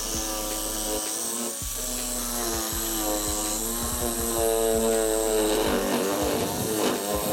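Electric jigsaw sawing through a pine board, its motor running hard with a pitch that wavers as the blade bites into the wood.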